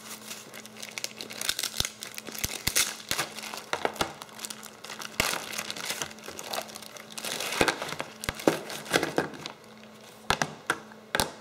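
Clear plastic wrapping and bags crinkling as a part is unwrapped by hand, in dense irregular rustles, thinning near the end to a few sharp clicks.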